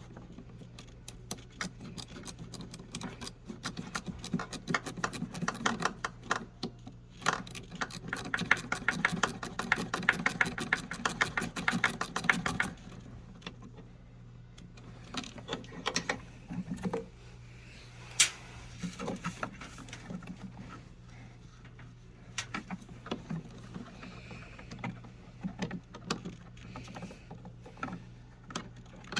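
Clicks, knocks and rattles of tools and parts being handled, with a fast, even clicking that lasts about five seconds around the middle, over a steady low hum.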